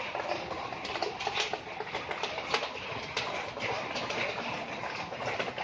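Floodwater splashing and dripping in a flooded room, a steady wash of water noise with many small irregular splashes.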